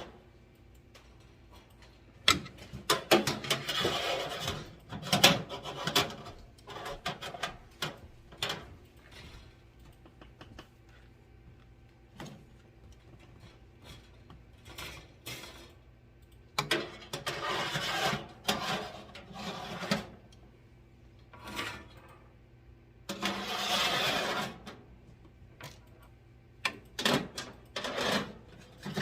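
Handling noises: scattered clicks and knocks with bursts of rustling, loudest in three clusters, as dehydrator trays are slid into place, over a faint steady hum.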